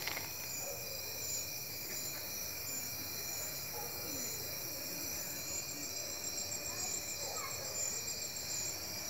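Night insect chorus of crickets and cicadas: steady high-pitched trilling, with a pulsing buzz in the top layer from about halfway through.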